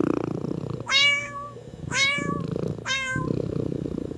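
A cat meowing three times, about a second apart, over continuous low purring.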